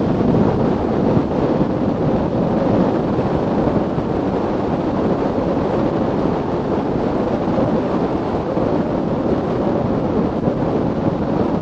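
Wind noise on the microphone over the steady running of a Mitsubishi Pajero off-roader.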